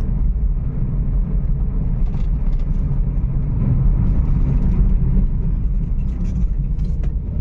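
Volkswagen car engine running under way while misfiring, a steady low rumble mixed with road noise. The fault is a misfire on cylinder 1, which the car's diagnostics link to the number-one injector.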